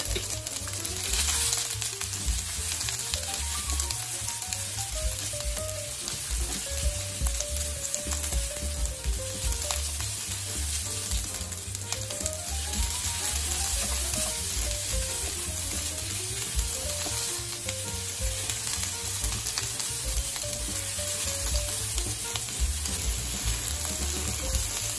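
Chopped onion and green bell pepper sizzling in oil in a non-stick frying pan, stirred and turned over with a spatula that knocks and scrapes against the pan.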